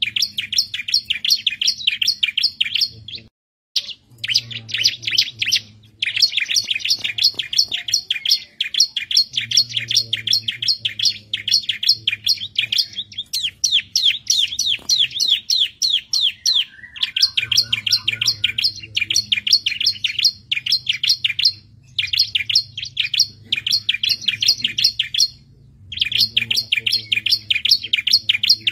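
Bar-winged prinia (ciblek) singing: long bursts of fast, sharp repeated chirps at about ten notes a second, broken by brief pauses. A lure song, used to set other prinias singing.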